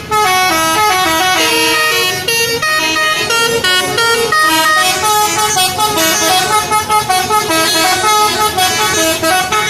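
Indonesian bus 'telolet' musical air horn sounding continuously, several tones at once stepping quickly from note to note in a jingle-like melody.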